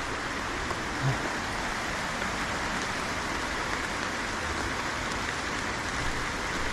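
Heavy tropical rain falling, a steady even hiss.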